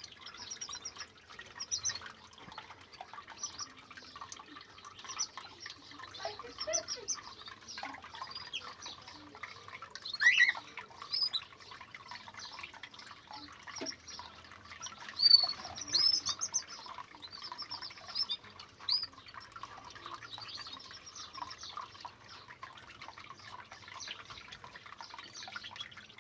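Cage birds chirping and twittering in quick, high calls, with a few louder calls, over the steady trickle and drip of a small homemade fountain inside the cage.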